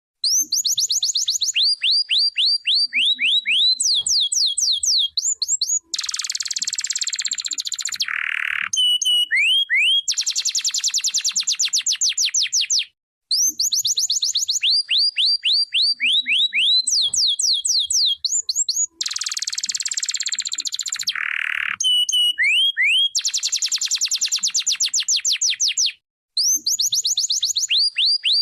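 Domestic canary singing a long song of rapid trills, each a fast run of repeated sweeping notes, broken by a harsh buzzy roll and a lower rolling trill. The whole song is sung twice, with a short pause between the two.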